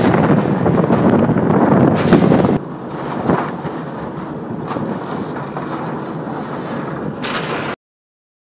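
Wind buffeting a phone's microphone high on a fishing boat's mast, over the steady noise of the boat under way. It drops to a quieter level about two and a half seconds in, then cuts off suddenly near the end.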